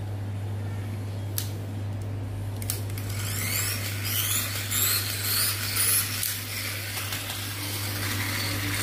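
Pull-back motors of toy battle cars being wound by dragging the cars backward on a tiled floor: a run of short rising whirs, about two a second, starting about three seconds in, after a couple of light knocks, over a steady low hum.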